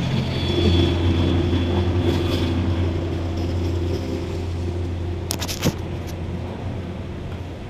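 Steady low hum of a restaurant dining room, slowly fading, with a short clink of a spoon and fork against a plate about five and a half seconds in.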